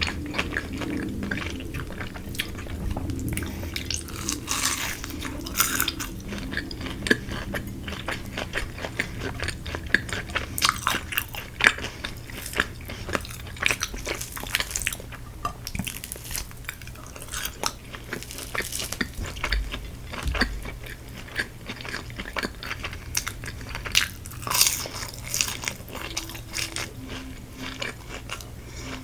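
A person biting into and chewing crispy Korean fried chicken, with many irregular crunches of the fried coating.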